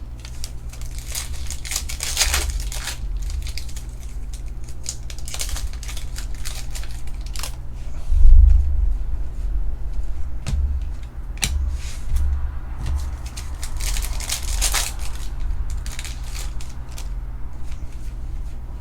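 Foil trading-card pack wrappers crinkling and tearing while cards are handled, with scattered clicks. A low thump comes about eight seconds in.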